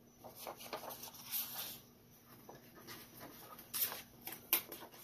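Clear stamp sheet and its paper-and-card packaging being handled: a run of short rustles and crinkles, the sharpest near the end.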